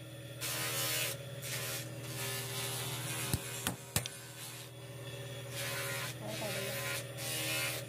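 A steady low electrical buzz, with hiss that comes and goes; three sharp knocks a little past the middle as the sickle's steel blade and wooden handle are struck against a steel anvil block.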